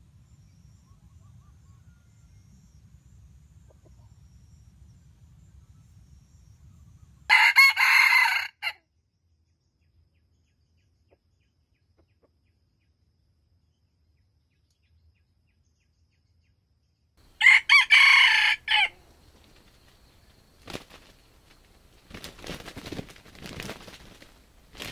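Red junglefowl rooster crowing twice, about ten seconds apart: each crow is short, and it comes out in broken, stuttering pieces. Fainter rustling follows near the end.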